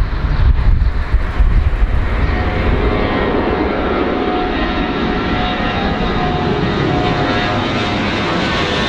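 Fixed-wing aircraft engine running loud: wind buffeting the microphone for the first two seconds, then steady engine noise with a faint whine that climbs slightly in pitch near the end.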